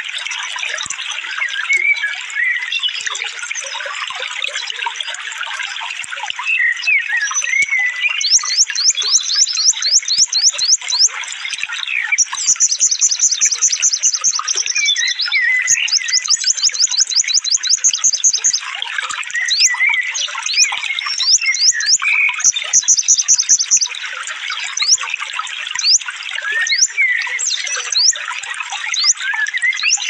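A small songbird singing rapid, high-pitched trills of quickly repeated notes mixed with chirps, the densest trilling in the middle stretch. Steady running water sounds underneath.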